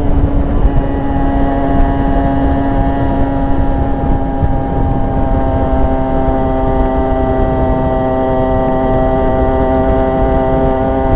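Rieju RS2 50 Matrix's 50cc two-stroke single with a custom exhaust, running hard at high revs with a steady buzzing note. The pitch shifts slightly just under a second in, then holds, over a low wind rumble on the microphone.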